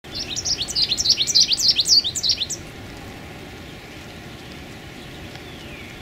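Male American goldfinch singing: a quick run of high twittering notes lasting about two and a half seconds, then stopping.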